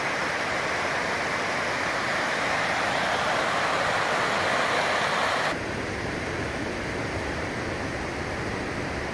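Alpine mountain stream rushing over rocks in whitewater, a steady loud rush that drops abruptly to a quieter level about five and a half seconds in.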